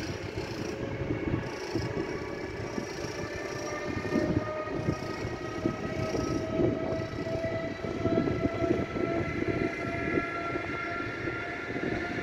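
Electric locomotive hauling passenger coaches out of the station, its traction motors whining in a slowly rising pitch as it gathers speed, over the rumble and clatter of wheels on the rails.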